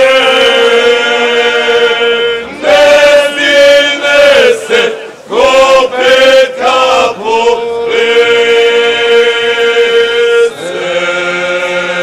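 Folk group singing without instruments in long held notes, with short breaks between phrases; about ten seconds in the chord shifts and the singing grows quieter.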